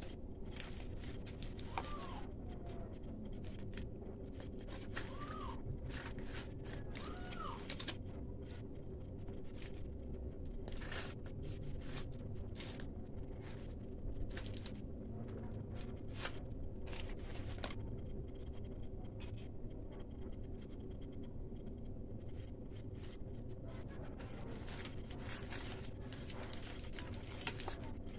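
Aluminium foil crinkling and crackling in short, scattered clicks as a whole tilapia is handled and stuffed on it, over a steady low hum. A few faint short chirps come in the first several seconds.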